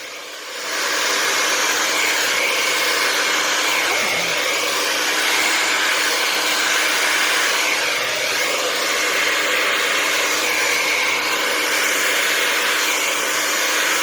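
Handheld blow dryer with a nozzle attachment running, a steady airy rush with a faint whine, blowing acrylic paint across a wood round. It rises to full strength within the first second, then holds steady.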